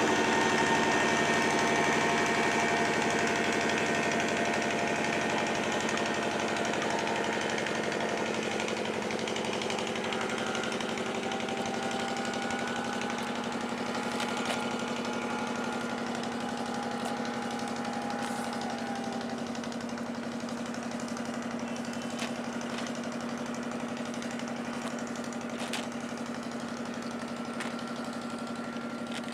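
A boat engine running steadily with a low hum, slowly growing fainter, with a few faint clicks.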